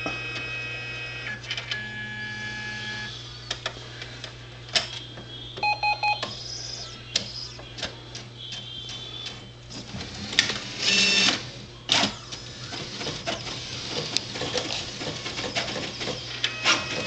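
An all-in-one printer's control panel beeping and clicking under repeated button presses. Partway through, the printer's paper-feed and print mechanism starts up with whirring and rapid clicking. A steady mains hum runs underneath.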